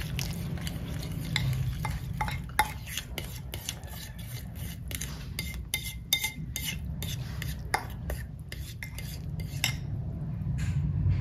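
A kitchen utensil stirring and scraping in a bowl, with many irregular clicks and taps against its side, over a low steady hum.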